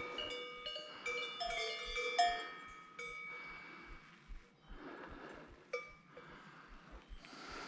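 Several cowbells clanking and ringing at different pitches as the cows move, thickest in the first three seconds and again briefly near the six-second mark. Footsteps scuff on a dirt path in between.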